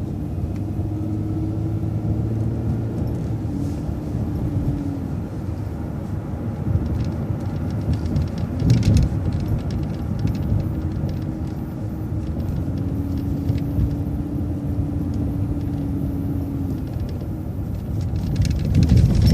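City transit bus running with a steady low rumble and a held whine that fades out and comes back. There is a brief louder noise about nine seconds in.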